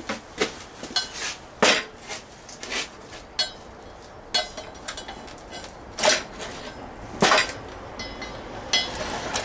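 Irregular metallic clanks and knocks of tools and metal parts being handled and set down, a dozen or so sharp ringing hits with the loudest about a second and a half in and again near six and seven seconds.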